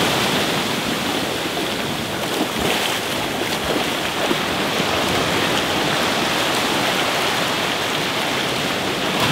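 Shallow surf washing up and back over a sandy beach, a steady rush of broken whitewater.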